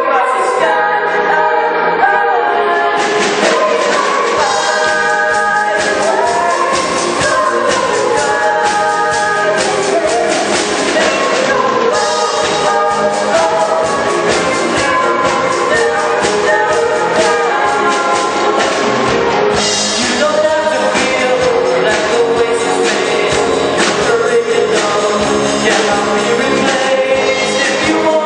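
Children's choir singing a pop song in harmony over instrumental backing with a steady beat.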